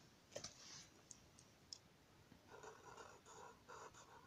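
Near silence: a faint click about half a second in, then in the second half a quiet run of short strokes, a few a second, of a marker pen drawing on paper.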